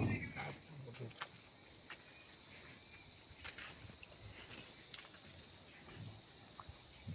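Steady high-pitched insect chorus of crickets trilling, with a low thump right at the start and a few faint clicks.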